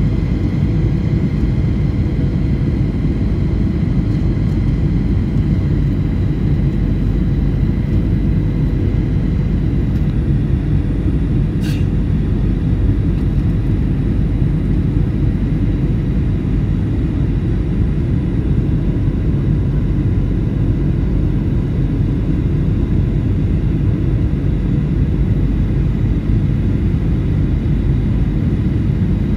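Cabin noise inside a Boeing 737 airliner in flight: a steady low rumble of engines and airflow with a faint constant whine. A single brief tick about twelve seconds in.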